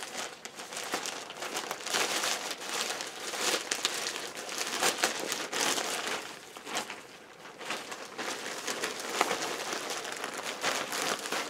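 A small package being opened by hand: its wrapping crinkles and rustles, with many irregular crackles.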